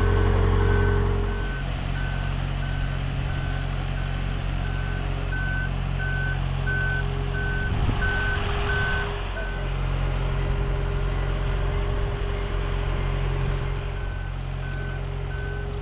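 Marine Travelift boat hoist moving with a catamaran in its slings: its backup alarm beeps steadily, about one beep every 0.7 s, over a running engine. The engine sound drops a little over a second in, and the beeping pauses for a few seconds past the middle before starting again.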